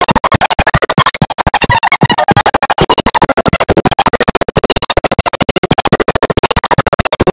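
Background music with a fast, choppy beat.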